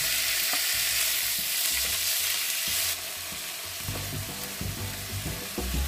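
Sliced pork frying in hot oil and garlic in a non-stick frying pan: a loud sizzle that settles to a quieter sizzle about three seconds in, with a wooden spatula stirring and scraping the meat.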